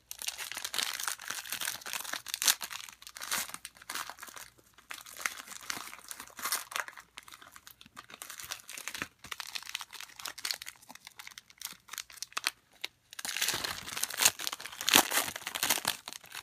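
Foil and plastic trading-card pack wrappers crinkling and tearing as packs are ripped open and handled, in irregular bursts that are heaviest near the start and again near the end.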